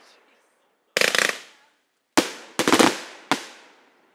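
Aerial fireworks going off: a burst of rapid crackling about a second in, then three sharp bangs in quick succession with dense crackling between them, each fading away after the blast.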